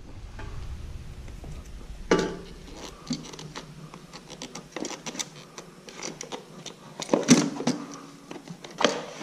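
Plastic battery case scraping and knocking against a motorcycle's battery box and frame as it is worked by hand into a tight space. Scattered clicks and rubs, with louder knocks about two seconds in and again about seven seconds in.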